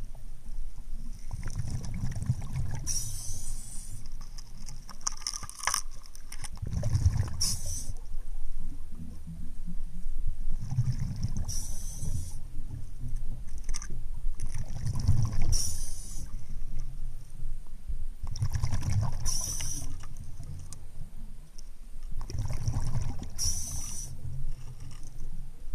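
A scuba diver's breathing heard underwater through the regulator: a short hiss on each inhale and a low rumble of bubbles on each exhale, repeating about every four seconds.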